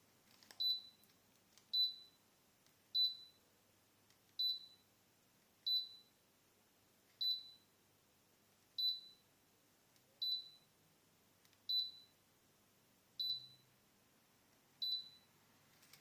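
Electric fireplace's control unit beeping: eleven short, high beeps, one every second and a half or so, the kind of confirmation beep given for each remote-control button press as settings are stepped through.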